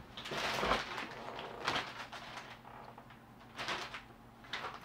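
Rustling and scraping of packaged goods being rummaged through and pulled out of a cardboard box, in several short bursts.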